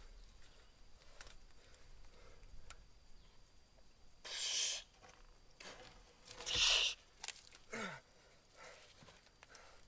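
A person breathing hard: two loud, hissy exhalations, then shorter sighs that fall in pitch.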